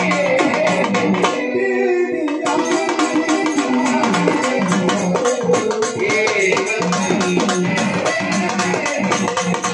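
Marathi folk song: a dimdi frame drum beats a fast, steady rhythm under a sung melody that glides and bends in pitch.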